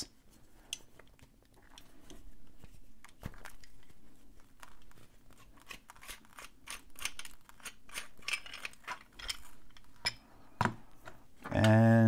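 Light metallic clicks and scrapes of a stainless steel disc padlock being handled and slid out of a drilling jig, scattered irregularly and coming more often after the first couple of seconds.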